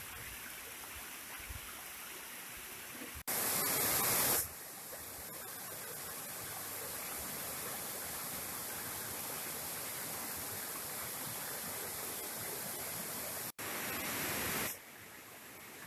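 Waterfall rushing steadily. Twice, after an abrupt break, it turns louder and brighter for about a second.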